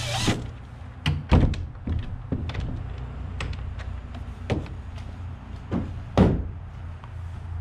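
Wooden shed door being worked and swung open: a string of separate knocks and thuds, the loudest just after six seconds in, over a steady low hum.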